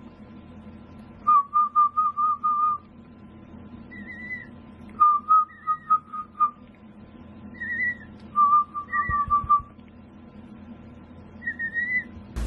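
Emu chick whistling: three runs of quick, evenly spaced high peeps, each about a second and a half long, with a few short, higher rise-and-fall chirps between them.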